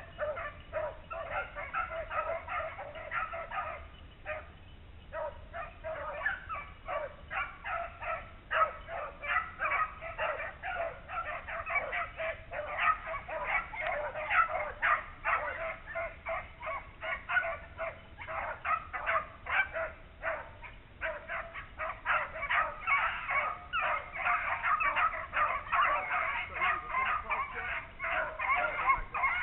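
A pack of beagles baying on a rabbit's track, many barks overlapping almost without a break, with a short lull about four seconds in.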